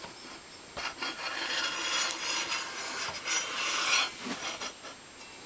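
Something rubbing and scraping as it slides across the table saw's surface, a continuous rasping sound lasting about three seconds before it stops.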